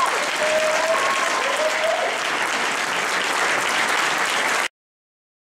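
Audience applauding steadily, with a few drawn-out calls over it in the first couple of seconds. The applause cuts off abruptly near the end.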